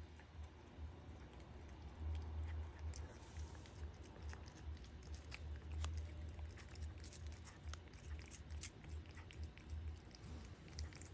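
Cat chewing and biting a treat: many small, irregular clicks of teeth on food over a faint, uneven low rumble.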